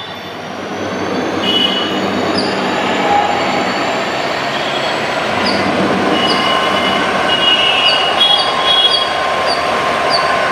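EMD WDP 4B diesel-electric locomotive's two-stroke engine notching up as it pulls a passenger train away from a halt and approaches. The engine gets louder over the first couple of seconds, then holds steady, with short high-pitched squeals now and then.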